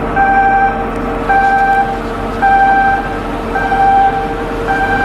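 Electronic warning beeper sounding in an even rhythm, about one half-second beep per second, over a steady machinery hum.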